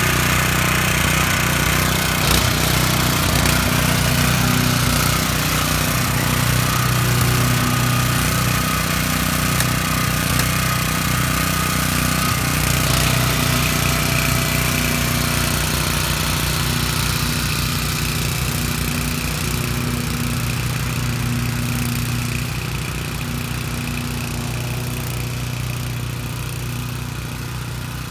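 Small single-cylinder petrol engine of a BCS two-wheel walk-behind tractor running steadily under load as it pulls a hiller-furrower through garden soil. It grows gradually quieter over the second half as the machine moves away.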